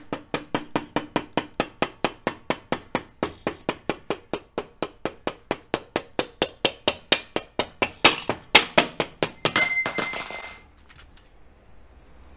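Rubber mallet tapping quickly on the end of a motorcycle engine-mount shaft, about four to five taps a second, driving the new shaft through to push the old steel shaft out. The taps grow louder near the end. Then the old shaft drops out and lands with a metallic clatter and a ringing that dies away after about a second.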